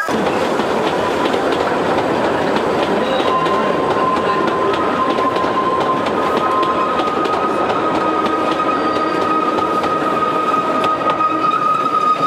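Kurobe Gorge Railway trolley train running, heard from aboard: a continuous rumble and clatter of wheels over the rails. A steady high whine sits above it and creeps slightly up in pitch.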